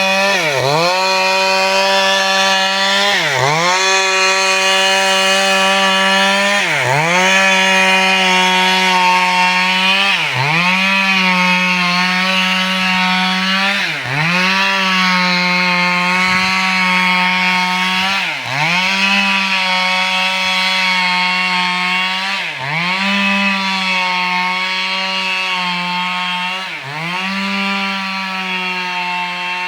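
Chainsaw engine running at high revs while cutting wood, its pitch dropping sharply and recovering about every three to four seconds.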